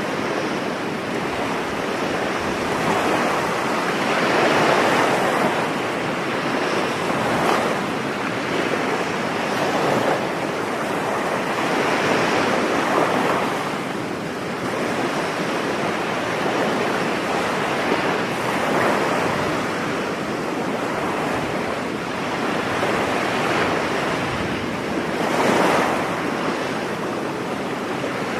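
Ocean waves breaking on a beach: a continuous rush of surf that swells and falls back every few seconds, with one stronger break near the end.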